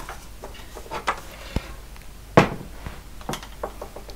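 Plastic terminal chassis being turned over and set down on a bench: a series of light knocks and clunks, the loudest about two and a half seconds in.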